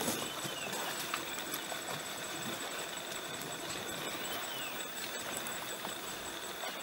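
Steady rush and swirl of river water around wild Asian elephants bathing and swimming in it. A faint short chirp sounds twice over the water noise.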